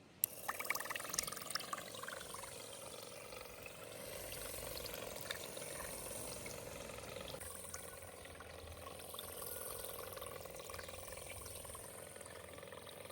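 A small battery-powered DC motor on a miniature wooden boat runs with a steady hum while its propeller churns and splashes the water. It starts suddenly, with a few sharp splashes in the first two seconds.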